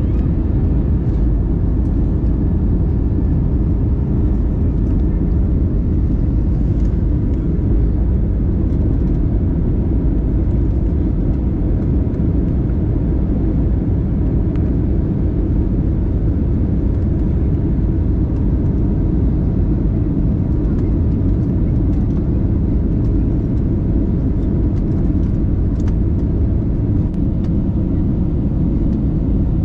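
Airbus A320-family airliner cabin noise on descent: the turbofan engines and rushing air heard from a window seat, a steady deep rumble with a faint even hum.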